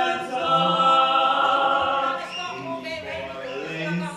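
A choir of voices singing, holding long sustained notes and then moving to new pitches.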